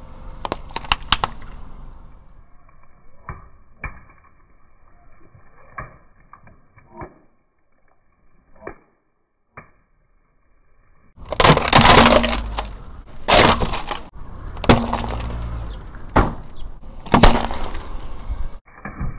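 A car tyre crushing objects one after another. First a quick run of sharp pops as a row of modelling balloons bursts under the wheel. After a near-silent stretch, a loud run of crunching and bursting with hissing spray as aluminium drinks cans split and spray fizzy drink under the tyre.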